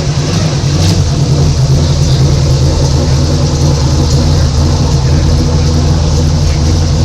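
A race car's engine running loud and steady at low revs close by, its low rumble unchanging throughout.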